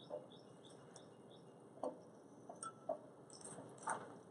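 A few faint, scattered clicks and soft rustles of hands handling wet, salted kimchi vegetables and dropping them into a glass jar.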